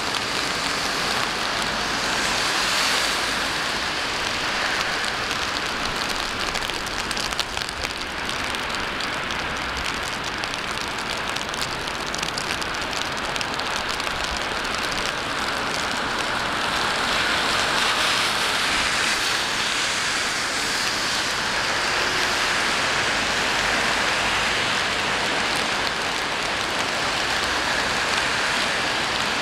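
Steady rain falling on a city street, mixed with the hiss of traffic on the wet road, growing a little louder a few seconds in and again past the middle.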